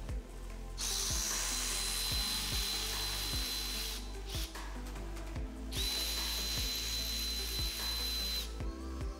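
Cordless electric ratchet running twice, each time for about three seconds with a steady high whine, spinning out bolts in an engine's bottom end.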